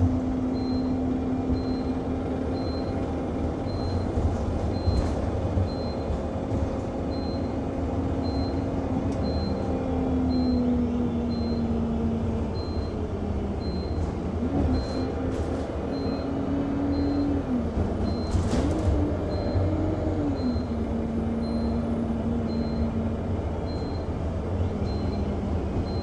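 Inside an Enviro200 MMC single-deck bus under way: the engine and drive hum rises and falls in pitch as the bus speeds up and slows, while a short, high electronic beep repeats a little faster than once a second without a break. About two-thirds of the way through there is a brief hiss.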